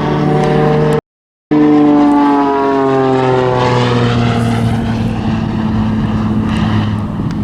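Aerobatic propeller plane's engine with the power taken off, its note falling steadily in pitch for several seconds. The sound cuts out completely for half a second about a second in.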